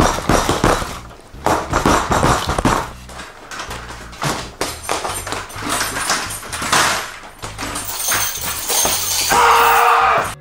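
A man in a rage tantrum, with repeated crashing and thudding as he lashes out at his gaming chair and a punching bag and knocks the chair over, mixed with shouting. Near the end a long, loud yell or cry holds on before cutting off suddenly.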